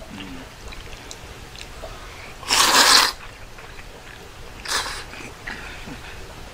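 Udon noodles being slurped from a bowl: one long, loud slurp about two and a half seconds in, then a shorter slurp about two seconds later.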